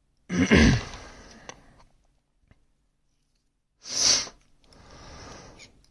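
A person's nasal breathing sounds close to the microphone: a loud short burst through the nose about half a second in, a sharp sniff about four seconds in, then a softer breath out.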